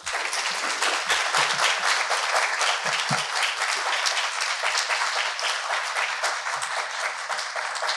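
Audience applauding: dense, steady clapping from a roomful of people, breaking out right after a speech ends.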